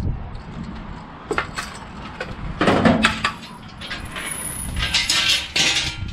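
Steel mower utility bed frame being handled and moved on a concrete driveway: scattered knocks, then two longer spells of clanking and scraping, about two and a half seconds in and again near the end, as the frame is tipped over and set down.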